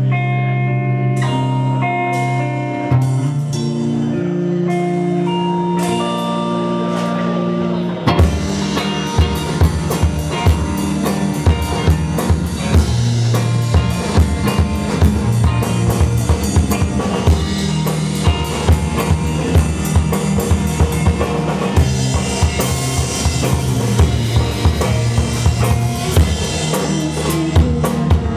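Live band playing a song: it opens with guitar and bass notes alone, and about eight seconds in the drum kit comes in and the full band plays on with a steady beat.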